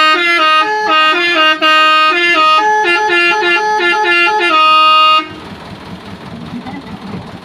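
A bus's 'telolet' multi-tone musical horn playing a quick tune of stepped notes for about five seconds, then cutting off suddenly. A low background rumble remains after it stops.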